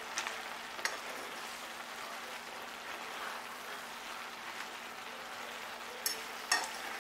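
Sliced cabbage sizzling steadily as it sautés in a skillet while being stirred and tossed with a spatula and fork. A few sharp clicks of the utensils against the pan, the loudest near the end.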